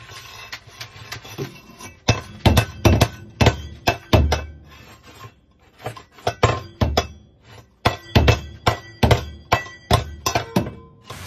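Stainless steel bowl clanking and clinking against a hard floor as an African grey parrot grips it in its beak and knocks it about. The knocks come in irregular runs, several a second, some with a brief metallic ring, with a short lull midway.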